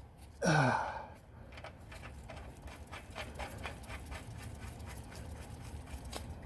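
A brief grunt falling in pitch, then faint, irregular small metal clicks and ticks as a nut is spun on by hand onto the rear shock's lower mounting stud.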